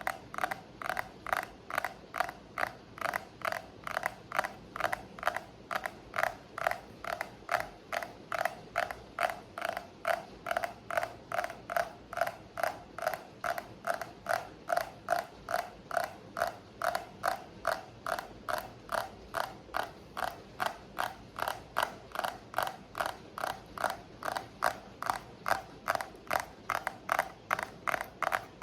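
Steady, even tapping for ASMR, about two to three short taps a second.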